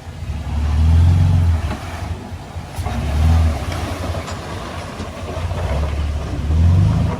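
Heavy earthmoving machine's diesel engine working under load, rising in three revving surges, about a second in, a little past three seconds and near the end.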